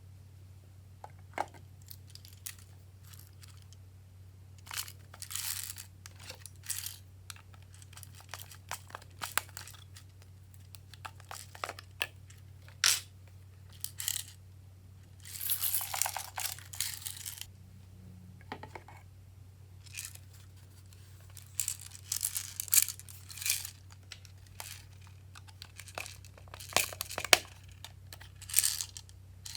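Glossy slime being handled and mixed, giving irregular sticky crackles, clicks and rustling bursts, a few of them lasting about a second.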